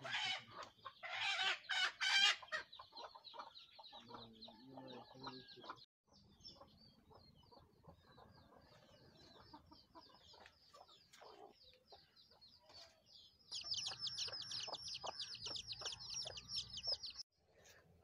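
Chickens calling: chicks peeping in quick series of high repeated notes, over lower clucking. The peeping is faint in the middle and loudest and fastest near the end.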